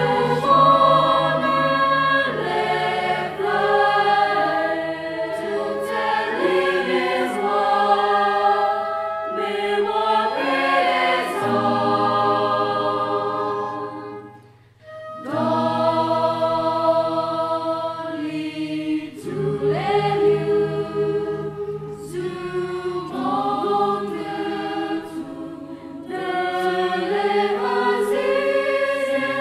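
Mixed choir of men's and women's voices singing in harmony under a conductor. About halfway through, the sound fades to a brief pause, then the choir comes back in.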